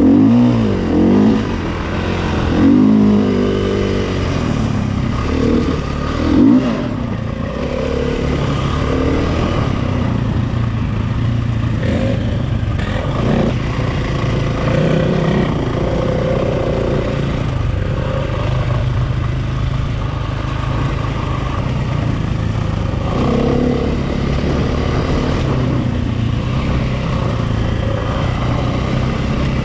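KTM EXC single-cylinder four-stroke enduro motorcycle engine running under throttle, its revs rising and falling repeatedly in the first few seconds, then running more evenly with smaller changes in speed.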